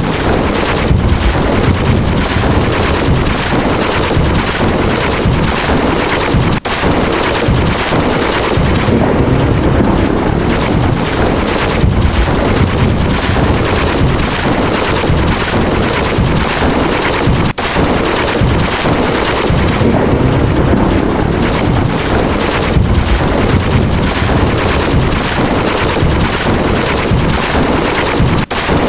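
Lightning-strike and thunderclap sound effects played in rapid succession, overlapping into a dense, continuous crackling rumble. It breaks off very briefly three times, about eleven seconds apart.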